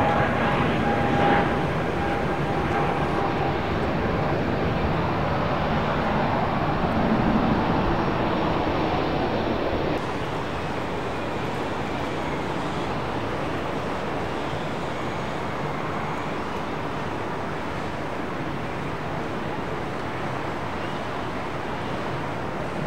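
Jet airliner engines giving a steady rush of noise, with a faint whine near the start. About ten seconds in the sound drops a little and loses some of its top end, then holds steady.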